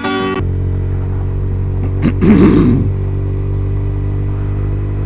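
Honda CBR125 motorcycle's single-cylinder four-stroke engine running steadily. About two seconds in, the rider gives one loud, rough cough lasting under a second.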